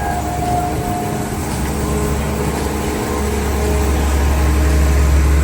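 Amusement park train running with a steady low rumble that grows a little louder in the second half.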